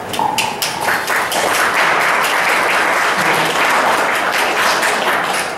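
Applause, many hands clapping at once, starting abruptly and holding steady for about five seconds before dying away.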